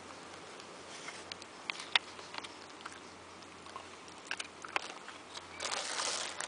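Clear plastic bag crinkling as a hand rummages in it for dog treats, and a small dog taking a treat from the fingers and chewing it. There are scattered small clicks and crackles, with a short, louder rustle near the end.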